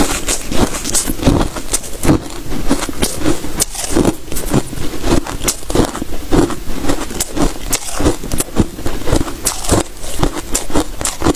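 Close-miked chewing of crunchy freezer frost ice: dense, irregular crunching and crackling, several crunches a second, with a metal spoon scooping through the bowl of frost.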